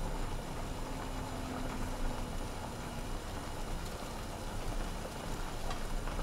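Pot of udon boiling on the stove: a steady, even rumbling hiss.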